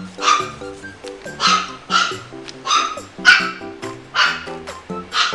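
Upbeat background music with a small puppy yapping over it, short sharp barks coming roughly once or twice a second.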